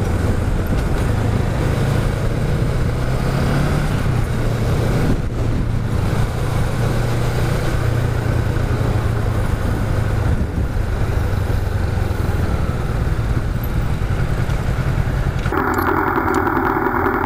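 Honda Rebel 500's parallel-twin engine running steadily while riding, with road noise and its pitch shifting slightly with the throttle. About three seconds before the end the sound switches abruptly to a different, muffled mix.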